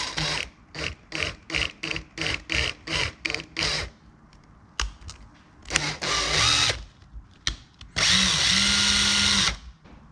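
Power drill with a 2 mm bit drilling out the fuel passage to the needle and seat in a chainsaw carburettor, enlarging it so the carb can supply more fuel on methanol. It runs in short bursts, about three a second, for the first four seconds, then one longer burst, then a steady run of about a second and a half near the end.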